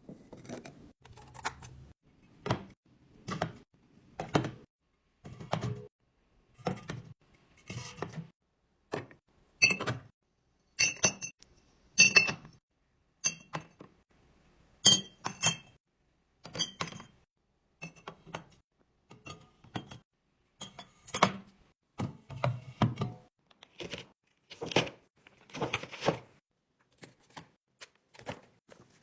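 Drinks and food containers set down one after another while a fridge is restocked: a steady string of thunks and knocks, with ringing clinks between about 10 and 16 seconds in.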